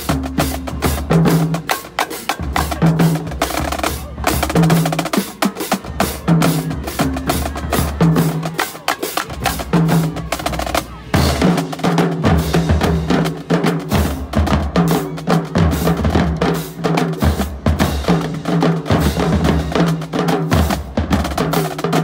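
Marching drumline playing a fast cadence: Pearl marching snare drums rattling with rolls over a repeating pattern of tuned bass drum hits, with crash cymbals.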